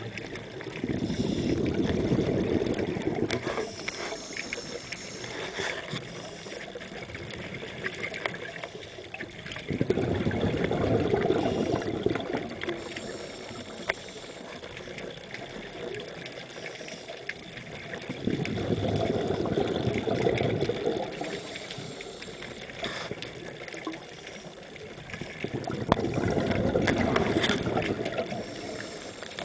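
Scuba breathing through a regulator underwater: four long rushes of exhaled bubbles, about eight seconds apart, with quieter stretches between breaths.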